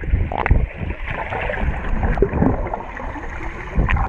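Swimming-pool water heard with the microphone underwater: a muffled rumbling and gurgling of moving water, with irregular dull thumps from swimmers' movements.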